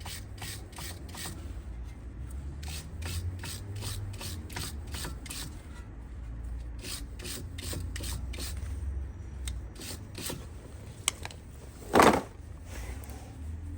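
A brake caliper guide pin being scrubbed clean of built-up dust, with quick repeated rubbing strokes, roughly three a second. One loud thump comes near the end.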